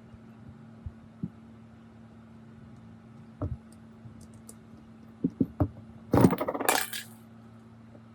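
Small metal parts clinking: a few light knocks, then a dense rattling clatter about six seconds in that lasts about a second, over a steady low hum.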